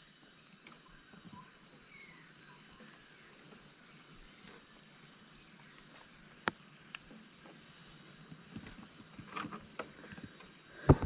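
Faint, steady high-pitched insect buzz throughout, with one sharp click about six and a half seconds in and a few small knocks and rustles near the end from hands taking prawns off the hooks.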